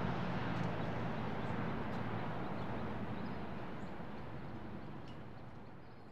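Outdoor park ambience: a steady background hiss with a few faint distant sounds, slowly fading out toward silence.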